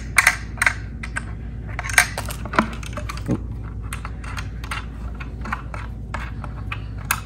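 Clicking and ticking of plastic and metal as the captive thumbscrew of a monitor stand's base is turned by hand to fasten the base to the stand. The clicks come quickly at first and then more sparsely, with a short scrape near the middle.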